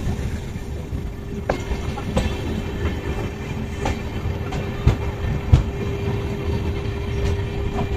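Amrit Bharat Express passenger coach running along the track, heard from its open doorway: a steady rumble and hum, with the wheels giving about seven sharp, irregularly spaced clicks over the track.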